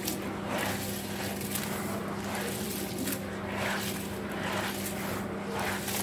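Gloved hands squeezing and stirring crumbled white cement in a bowl of water: wet, gritty squishing and sloshing in irregular strokes about once a second.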